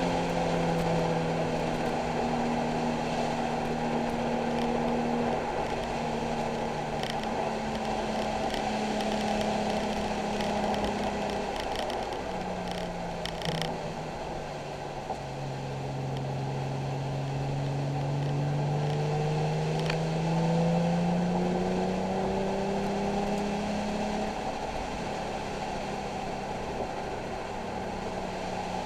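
Nissan 370Z's 3.7-litre V6 running under load on a wet race track, its pitch falling slowly for the first ten seconds or so, dropping low about halfway, then climbing steadily for around ten seconds as the car accelerates, over a steady road-noise hiss.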